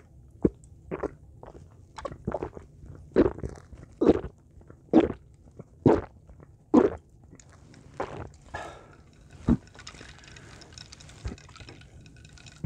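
A person gulping iced carbonated lemon-lime soda from a glass bowl with loud swallows about once a second. Near the end a softer fizzing hiss follows as the bowl is lowered.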